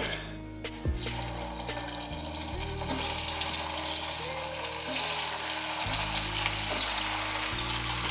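Rice manchurian balls deep-frying in hot oil: a crackling sizzle that starts about a second in as the first balls are dropped in and grows fuller as more go in.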